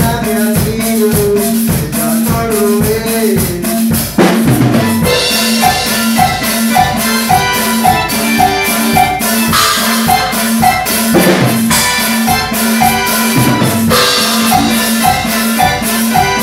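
Electronic keyboard and drum kit playing together in a steady Latin dance rhythm, about four beats a second, over a pulsing bass line. The keyboard melody glides in pitch at first, then turns into a short repeated figure after about five seconds, with a few cymbal crashes along the way.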